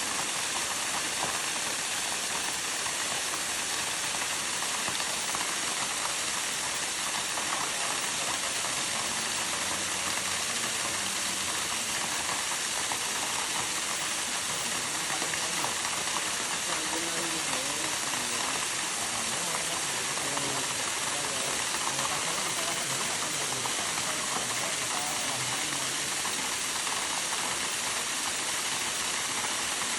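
Waterfall: a steady rush of falling water, heard as an even, constant hiss.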